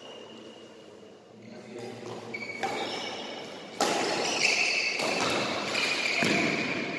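Badminton rally: sharp racket hits on the shuttlecock and sports shoes squeaking on the court floor, echoing in a large hall. It starts about two seconds in, and the loudest hit comes about four seconds in.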